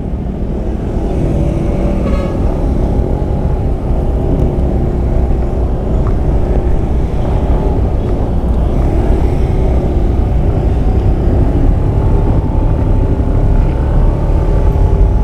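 Steady road noise from riding a motor scooter in traffic: low wind rumble on the rider's microphone, with the scooter's engine running underneath.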